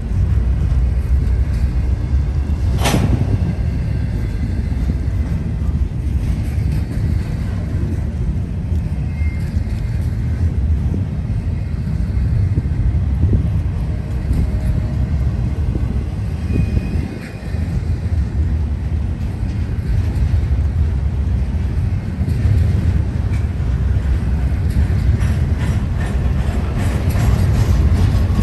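Norfolk Southern freight train rolling past: a steady, loud rumble of wheels on rail, with one sharp clank about three seconds in.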